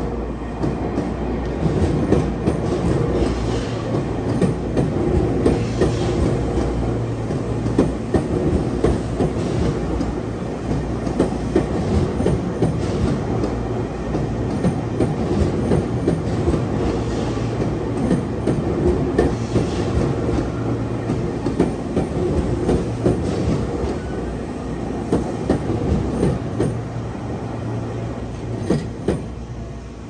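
An electric train passing slowly at close range, its wheels clacking irregularly over rail joints and points. The sound falls away near the end as the train clears.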